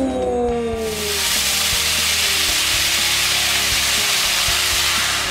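Tortillas sizzling in a hot frying pan of oil. The steady frying hiss starts about a second in and cuts off abruptly at the end, over background music.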